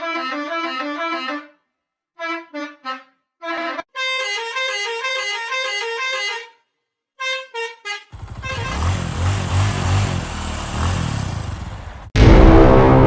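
Edited bus horn sound variations. First the horn is played as a quick, bouncing melody of pitched notes with short gaps. About eight seconds in it becomes a distorted, noisy stretch with a pulsing low end. Near the end a very loud, sustained horn blast sets in.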